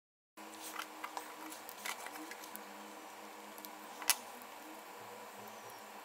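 Small clicks and taps from handling electronic parts and a perforated circuit board on a work table, over a steady low hum, with one sharper click about four seconds in. It starts suddenly after a brief silence.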